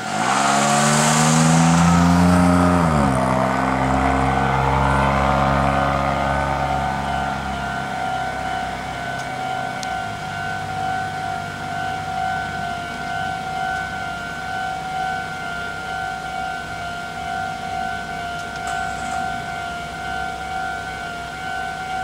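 Railway level-crossing warning bell ringing in a steady, evenly repeating two-tone ding. For the first three seconds a passing road vehicle is louder: its engine rises in pitch, then drops away.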